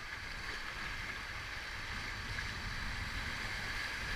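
River rapids rushing steadily, growing gradually louder as the raft moves into the whitewater, with a low rumble underneath.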